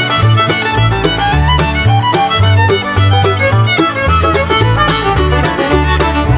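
Lively background instrumental music: a quick melody over a bass line that steps to a new note about twice a second, with a steady beat.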